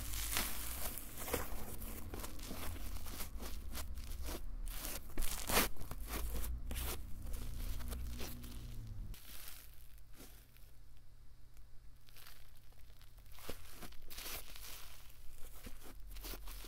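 Fluffy cloud slime made with instant snow powder being kneaded, squeezed and pulled apart by hand, giving a dense crackling and soft tearing with a louder snap about halfway through.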